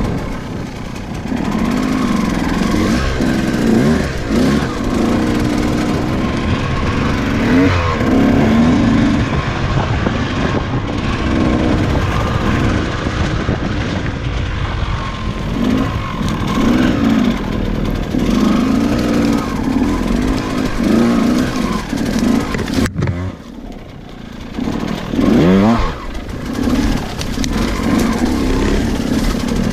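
KTM EXC 200 two-stroke enduro motorcycle engine under riding load off-road, its revs rising and falling constantly with the throttle. About two-thirds of the way through it drops off briefly, then revs up sharply again.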